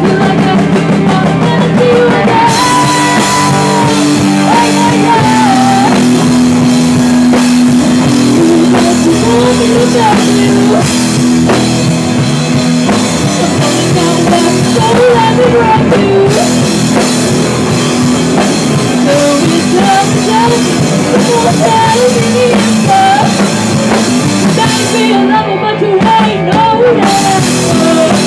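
A live rock band playing loudly: a woman singing over electric guitar and a drum kit.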